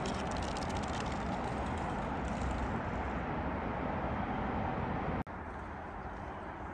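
Steady outdoor rushing noise from distant highway traffic and the swollen river, dropping suddenly quieter about five seconds in.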